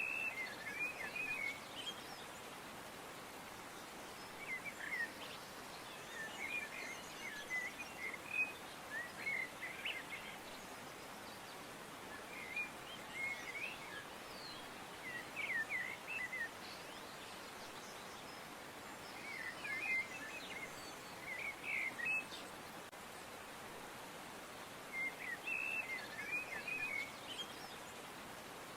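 Small birds chirping and twittering in short bursts of quick notes every few seconds, over a steady background hiss.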